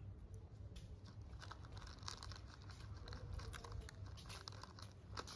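Faint crunching and crackling of a baby macaque chewing a crunchy ring-shaped snack, the small clicks growing busier about a second and a half in, over a low steady hum.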